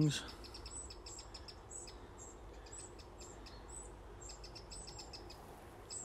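Young wrens calling from the brambles: runs of rapid, high ticking calls with short breaks.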